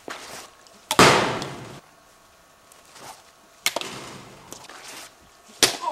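Impacts from a plastic Blitzball being pitched and hit: a loud smack about a second in, followed by a rattle that fades over most of a second, then two shorter sharp knocks, near the middle and near the end.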